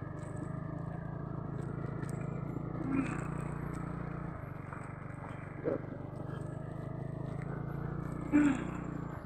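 Small motor scooter engine running steadily while riding slowly over a muddy dirt track, with a few brief voice sounds.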